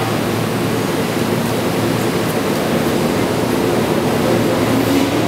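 Steady hum and rush of a Keihan 10000 series electric train standing at a station platform with its onboard equipment running, swelling slightly near the end.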